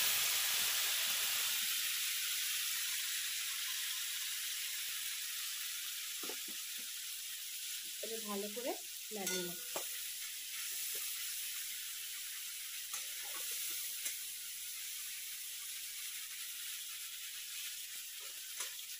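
Wet ginger, tomato and green chilli paste sizzling in hot mustard oil in a kadai as it is fried and stirred with a spatula. The hiss is loudest at the start, just after the paste goes into the oil, and dies down slowly.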